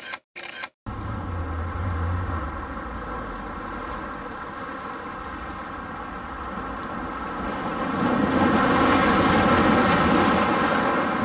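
A couple of camera-shutter clicks at the very start, then wind buffeting the microphone over the sound of surf washing on shoreline rocks. About eight seconds in, a wave surges in around the rocks and the rushing gets louder.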